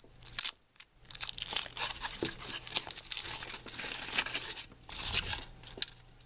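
Thin foil wrapper crinkling and tearing as it is peeled off a milk chocolate egg: a dense run of small crackles after a brief pause about a second in.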